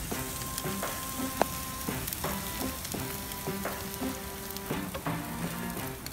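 Raw chicken skewers sizzling and crackling on a hot gas grill, with a single sharp click about a second and a half in.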